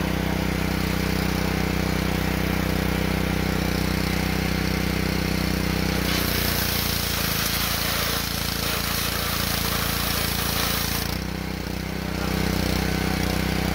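Gas-engine pressure washer running steadily. About six seconds in, the sandblaster wand is triggered and a loud hiss of high-pressure spray runs for about five seconds, then cuts off while the engine runs on.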